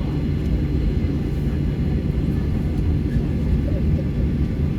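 Steady low rumble of cabin noise inside a Boeing 737-800 taxiing after landing, from the engines and air-conditioning.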